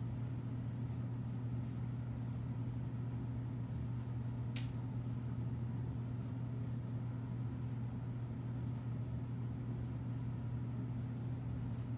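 Steady low hum of a motor or appliance in the room, unchanging throughout, with one soft click about four and a half seconds in.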